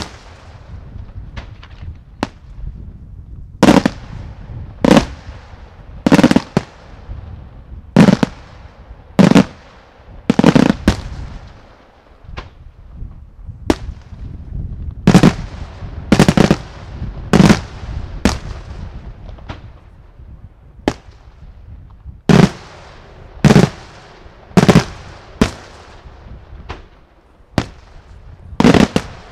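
Daytime fireworks display: aerial shells bursting overhead in a run of loud, sharp bangs, mostly about one a second, with crackling between them and a couple of short lulls.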